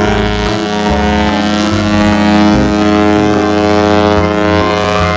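Ship's horn sounding one long steady blast over a rush of wind-like noise, with low notes shifting underneath.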